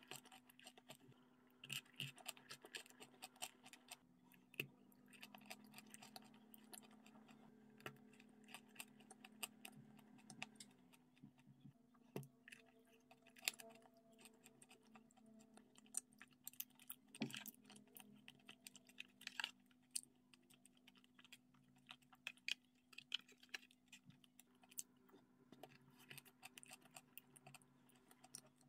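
Close-miked eating sounds: an irregular run of sharp clicks and crackles from chewing, lip smacks and a metal spoon touching teeth and a plastic tub, over a faint steady low hum.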